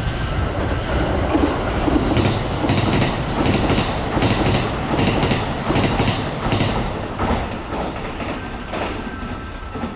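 Six-car Kintetsu 80000 series Hinotori limited express electric train running through a station at speed without stopping. Its wheels clatter in a steady rhythm over the rail joints; the sound is loudest in the middle and fades as the last car passes.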